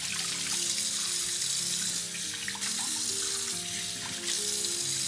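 Bathroom sink tap running steadily, its stream splashing onto a hand and a wet cloth held under it.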